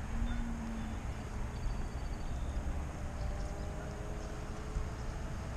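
Wind rumbling on the microphone, with a few faint, drawn-out tones in the background.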